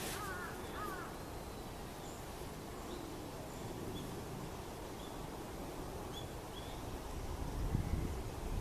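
Crows cawing, a quick run of arched caws in the first second, then faint short high chirps now and then over a steady outdoor background hum. A low rumble builds near the end.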